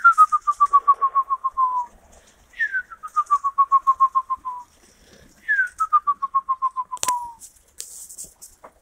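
Three trilled whistles, each about two seconds long and about a second apart. Each slides down in pitch, then levels off in quick, even pulses. A sharp knock comes about seven seconds in.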